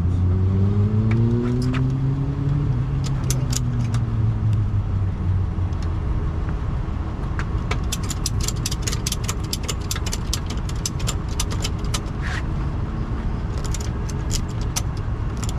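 Tow truck engine running steadily, its pitch rising and shifting for the first couple of seconds before it settles. Over it come runs of quick metallic clicks as the wheel-lift straps are ratcheted tight around the car's front wheels.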